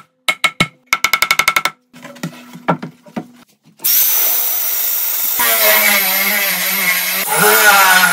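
Several hammer knocks on the framing lumber, a quick run of them about a second in. Then, from about four seconds in, a cordless drill bores into doubled framing lumber with a Forstner bit: a steady loud grinding that becomes a pitched motor whine under load and gets louder near the end.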